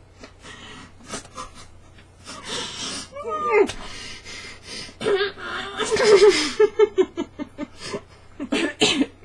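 Stifled laughter from people with mouths stuffed full of marshmallows: breathy snorts and gasps through the nose, with a run of quick choppy laugh pulses a little past the middle.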